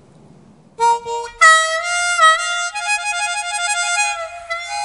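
Outro music of held, sustained chords, starting about a second in over a faint background hiss.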